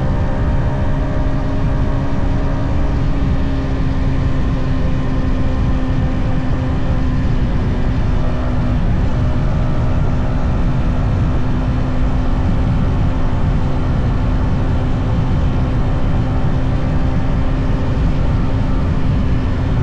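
Yamaha XSR 155's stock single-cylinder engine running at a steady cruise. Its note holds nearly constant throughout, over a dense low rush of wind and road noise at the action camera's microphone.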